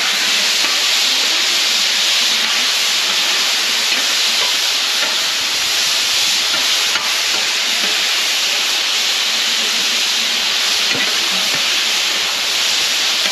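Diced beef frying on a hot flat-top griddle: a loud, steady sizzle.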